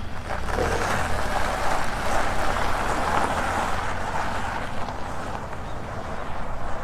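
A motor vehicle running: a steady rushing noise over a low rumble that swells in the first seconds and slowly eases off.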